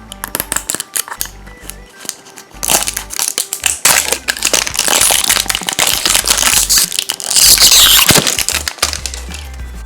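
Crinkly plastic blind-bag packaging of a toy figure being torn open and crumpled, a dense crackling that grows loud a few seconds in and eases off near the end, over background music.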